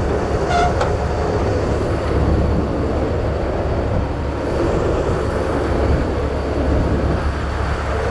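Heavy wrecker's diesel engine running steadily, a constant low rumble.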